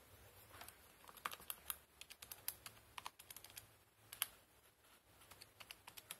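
Buttons of a Casio scientific calculator being pressed one after another, a run of faint plastic clicks, then after a short pause a few more presses near the end.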